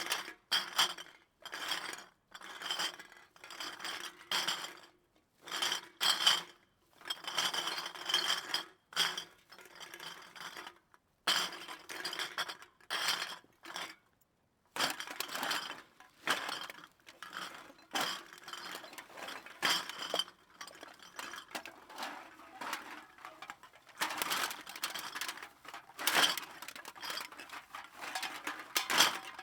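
Empty glass bottles clinking and clattering against each other, heard from a distance, in irregular bursts with short gaps between them and a glassy ring.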